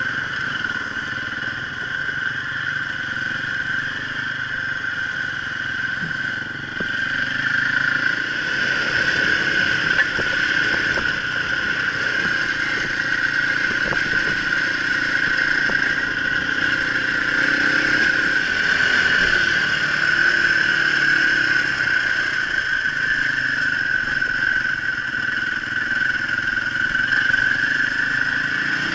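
Enduro motorcycle engine running as it is ridden along a gravel track, heard close up from the bike itself. The engine note rises and falls with the throttle over a steady high whine.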